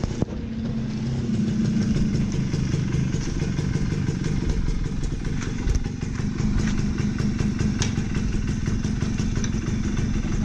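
Suzuki Max 100 R's small single-cylinder two-stroke engine running steadily, with a rapid, even firing beat.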